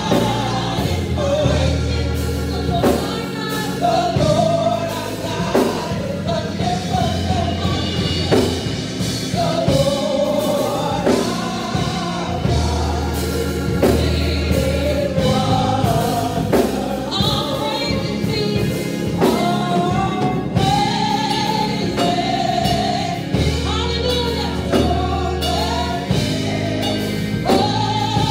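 Gospel music during worship: a choir singing over a band, with a steady drum beat and a bass line.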